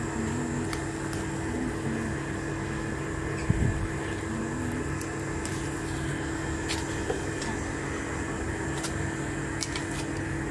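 Steady mechanical hum with a few constant tones, like a machine running, with one brief low thump about three and a half seconds in.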